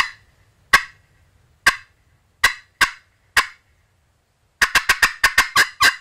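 Woodhaven Vision Crystal pot call played with a striker, imitating hen turkey cutting: six slow, sharp cut notes, a short pause, then a fast, excited cutting run of about five notes a second from about four and a half seconds in. It is a cut sequence that builds from slow to excited, used to make a gobbler gobble.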